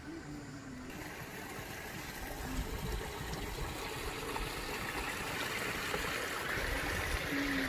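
Water trickling and running along a narrow stone-lined channel, growing louder toward the end.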